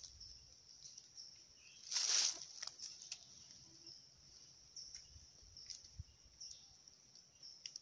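Insects droning steadily in a high, even band, with a brief rustling scuff about two seconds in and a few faint ticks.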